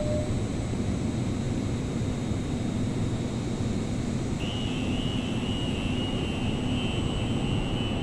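Underground metro station ambience: a steady low rumble, joined about four and a half seconds in by a thin, high, slightly wavering whine that holds on.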